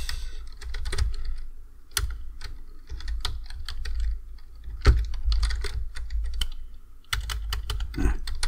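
Typing on a computer keyboard: irregular key clicks, some in quick runs and some single, with short pauses between.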